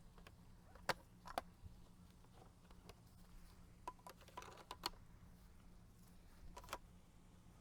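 Light, scattered clicks and knocks as composite raised-bed boards, snap-lock stacking brackets and stacking stakes are fitted together. There are a few sharp ones about a second in, a cluster around the middle, and another near the end.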